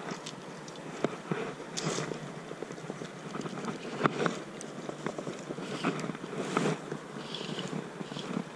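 Creek water running, with wind buffeting the microphone in uneven gusts and scattered small knocks and rustles as fly line is handled close by.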